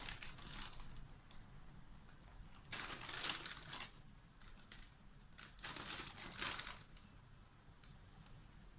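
Wheat flour being measured out with a cup and tipped into a bowl: soft rustling hisses, two of them about a second long, a few seconds apart.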